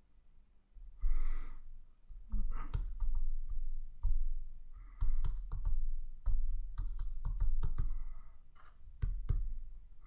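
Typing on a computer keyboard: irregular runs of sharp keystroke clicks as a line of HTML is entered.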